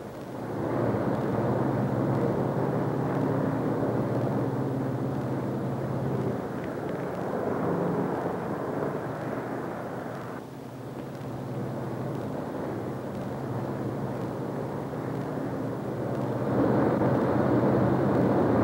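Lockheed Super Constellation's four radial piston engines droning steadily on the landing approach, gear and flaps down. The drone eases off about ten seconds in and grows louder again near the end.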